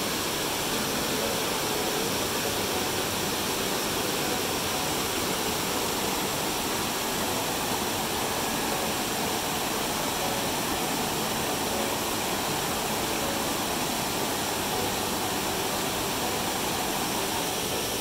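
Small waterfalls cascading over rocks into a whitewater stream: a steady rush of falling and churning water.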